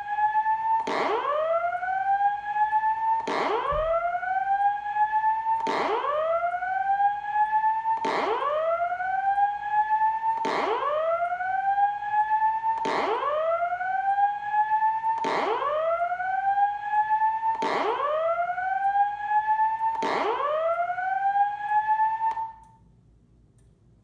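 Simplex 4903-9194 fire alarm speaker strobe sounding the whoop alert tone of a voice-evacuation sequence: a rising sweep repeated about every two and a half seconds, ten times, cutting off abruptly near the end.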